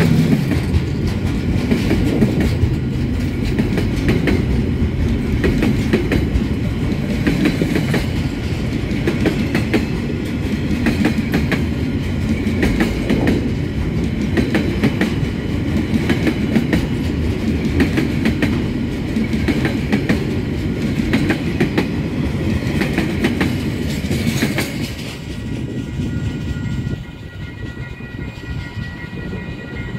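Freight train of container and tank-container wagons rolling past over a level crossing, the wheels clicking over rail joints and crossing frogs. The last wagon clears about 25 seconds in, and the rumble drops away, leaving the level crossing bells ringing.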